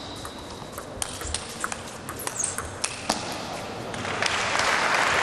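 Table tennis rally: the ball clicking sharply off the bats and the table at an irregular quick pace, with a short squeak midway. About four seconds in, the hits stop and crowd applause swells as the point ends.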